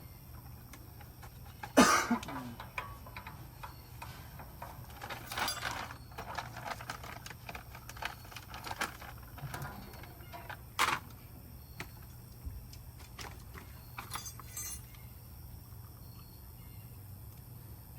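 Metal grill parts handled during assembly, clinking and knocking in scattered sharp strikes, the loudest about two seconds in and another near eleven seconds, over a steady low hum.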